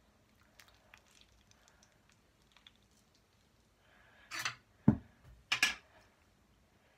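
Slime being kneaded and stretched by hand: faint sticky clicks at first, then two louder bursts of crackling with a single thump between them, about two-thirds of the way in.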